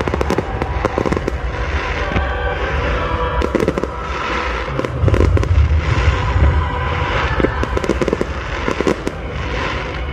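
Fireworks display: aerial shells bursting in a rapid run of bangs and crackles, over a deep rumble that swells about five seconds in.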